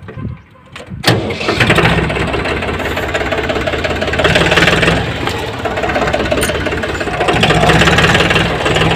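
Force Orchard DLX LT tractor's diesel engine catching about a second in, then running steadily and growing louder twice.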